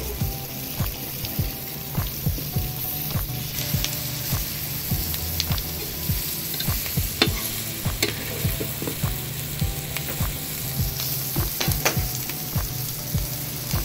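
A metal spatula scraping and knocking on a flat iron dosa pan as beef, onions and peppers are stir-fried in butter, with repeated short clicking strokes over a steady sizzle.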